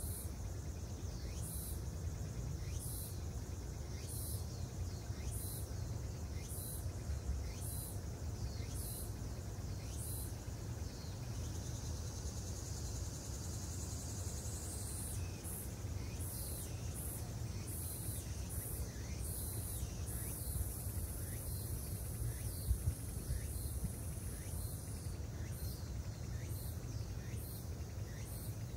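Outdoor ambience of insects chirping in short high-pitched pulses, about one and a half a second, with a steady high buzz joining for a few seconds past the middle, over a constant low rumble.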